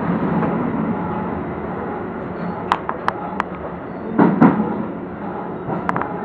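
Electric commuter train running along a station, heard from inside the front car: a steady rumble and hum with several sharp clicks, and a heavier thump a little after four seconds in.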